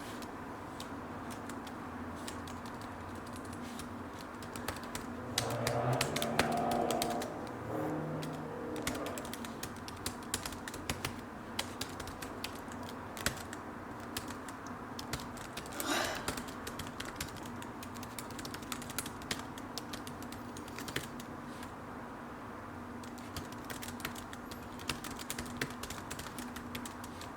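Typing on a computer keyboard: a fast, irregular run of key clicks with short pauses. About five seconds in, a brief low sound from the typist's voice rises over the clicks for a few seconds.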